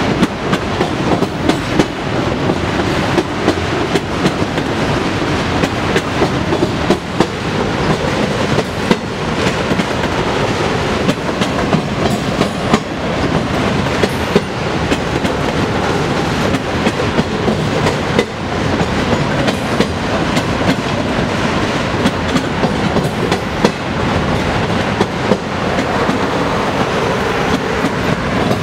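Autorack freight cars rolling past, their steel wheels clattering over rail joints in a steady rumble with frequent sharp clicks.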